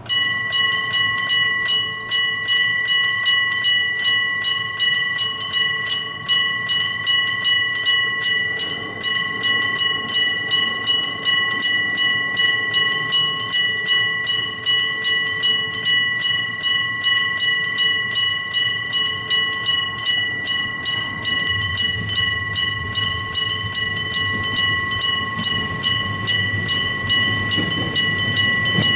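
A level-crossing electric bell (denryō type, a gong struck by an electric hammer) starts ringing suddenly: rapid, evenly spaced strokes on a steady, clear metallic tone, sounding the warning that a train is coming. About two-thirds of the way through, a train's low rumble builds beneath the bell.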